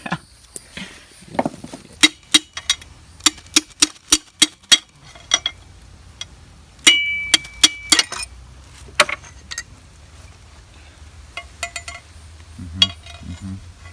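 Sharp metallic taps and clinks of tools on engine parts during the teardown of a Nissan KA24DE block: a quick run of strikes about two to five seconds in, a ringing clink lasting about a second near seven seconds in, then scattered clinks.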